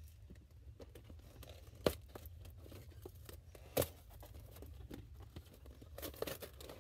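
Cardboard toy box being pulled open by hand: tape and flaps tearing and crinkling, with two sharp snaps about two seconds apart.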